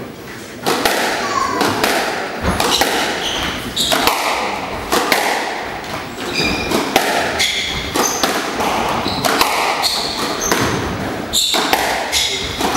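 Squash rally: the ball hit hard again and again, smacking off the rackets and the court walls from about a second in, with sneakers squeaking on the wooden court floor.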